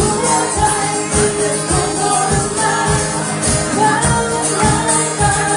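Live band music with a steady beat: a Thai pop song played by a trio.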